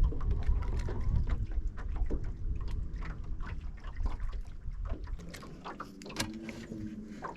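Water sloshing against the hull of a small fishing boat, with a low rumble that fades after the first few seconds. Many light clicks and knocks run through it, and a brief low hum comes near the end.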